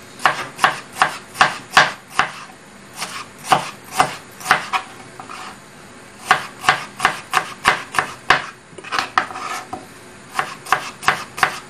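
A kitchen knife slicing onion on a plastic cutting board, each cut ending in a sharp tap of the blade on the board. The taps come about three a second, in short runs with brief pauses between them.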